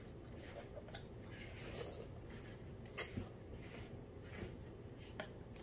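Children eating udon soup: soft slurps of broth and noodles from a spoon, with a sharp click about three seconds in and a few lighter clicks later, typical of a metal spoon and chopsticks knocking on ceramic bowls.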